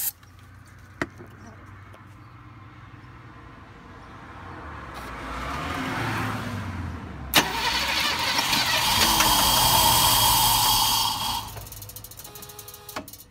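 1973 Mercedes 450SE's fuel-injected V8 being started after its injectors were refitted with new seals. It cranks, then a sharp click comes about seven seconds in, and the engine runs loud for about four seconds. It then drops back to a quieter run of fast, even ticks near the end.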